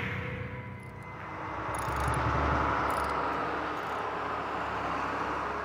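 A motor vehicle going past: a steady engine and road rumble that swells about two seconds in and slowly fades toward the end.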